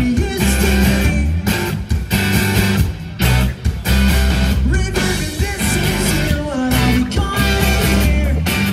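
Rock band playing live on an outdoor stage: electric guitars, bass guitar and drum kit together, the riff breaking off in a few short stops.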